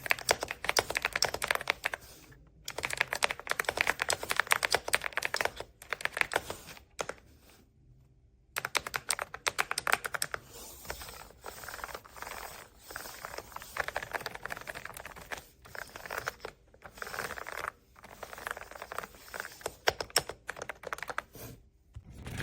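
Fast typing on an AULA F99 mechanical keyboard: rapid keystroke clicks in runs of a few seconds with short pauses, the longest pause about eight seconds in, and lighter clicking through the second half.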